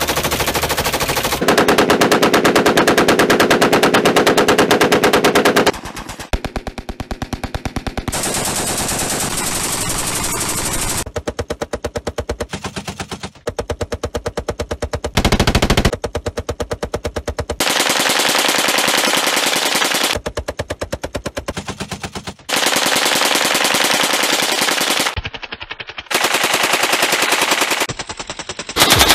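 Full-auto fire from a string of different machine guns and automatic rifles, in sustained rapid bursts. The sound changes abruptly every few seconds as one gun's burst is cut to the next.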